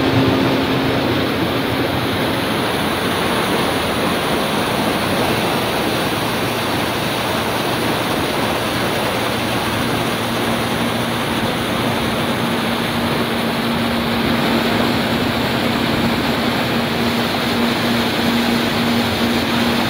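A motorboat under way: a steady rush of water and wind over the engine's drone, with a low steady hum coming in about halfway through.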